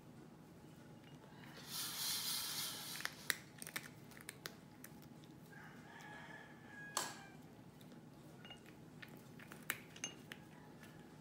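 Cat eating from a small ceramic saucer: scattered light clicks and taps of tongue and teeth against the dish, one sharper tap about seven seconds in. A short burst of hissing noise about two seconds in is the loudest sound.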